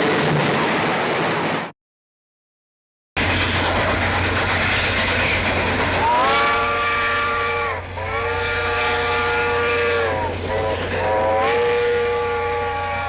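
Train steam whistle sounding a chord of several tones in blasts: two long ones, a short one, then another long one, each sliding up in pitch as it opens. It plays over the steady hiss and hum of an old recording. Before it, the end of a lower-pitched sound cuts off and there is about a second and a half of silence.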